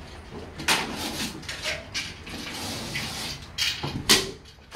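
A series of knocks and scrapes from hands-on work, with a longer scraping stretch in the middle and the loudest sharp knock near the end.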